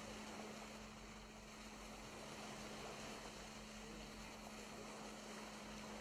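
Faint steady rush of a ship's bow wave along the hull, with a low steady hum underneath.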